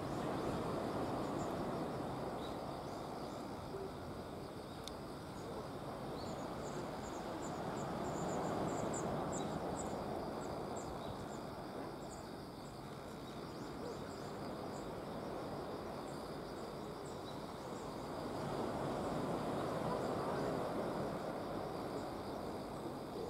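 Small waves washing onto a pebble beach, a steady surf wash that swells and fades about every ten seconds. Faint high ticking chirps run through the middle.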